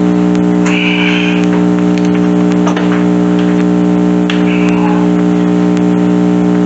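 A loud, steady droning hum throughout, with a few light clicks and two short high squeaks of metal work on the mower's bumper mount.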